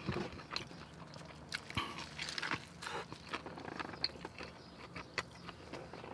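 A person chewing a mouthful of pastrami burger close to the microphone, with many irregular mouth clicks and smacks.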